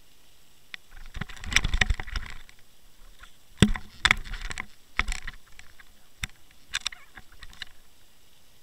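Irregular clicks, knocks and crackling rattles picked up underwater by a fishing camera resting on the sea floor. There is a dense rattle about a second in, sharp single knocks around the middle, and a lighter crackle near the end.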